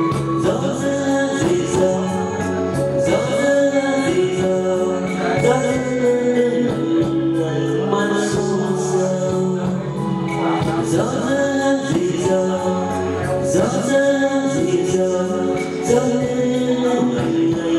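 Music: an instrumental passage of a Vietnamese song, with sustained chords over a steady percussive beat.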